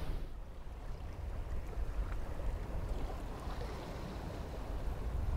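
Steady wash of sea and wind aboard a yacht under sail, with a low rumble of wind on the microphone.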